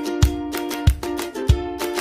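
Background music with a steady beat of low drum hits, about three in two seconds.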